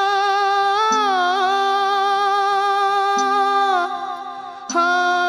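Kannada folk singer humming long held notes without words in an opening vocal line, bending and wavering in pitch at times. A steady tamburi drone sounds beneath with a pluck every second or so. The voice pauses briefly about four seconds in, then returns.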